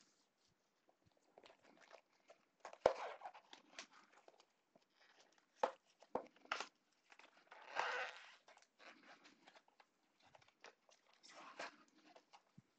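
A cardboard trading-card blaster box being handled and torn open by hand: irregular rustling, tearing and crinkling of cardboard and foil packs, with a few sharp taps against the table.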